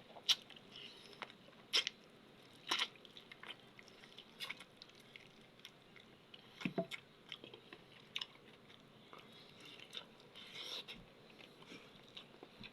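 A person eating close to the microphone: irregular crisp bites and crunches a second or two apart, with quieter chewing between them.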